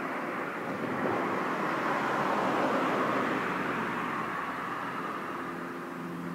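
A passing car: a rush of tyre and engine noise that swells to a peak about three seconds in and then fades away.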